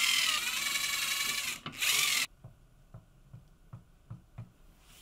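Cordless drill driving a screw into a wooden frame: a loud motor whine that pauses briefly about a second and a half in, then runs again for a short burst and stops suddenly. After it, a string of soft knocks of wooden parts being handled, about two or three a second.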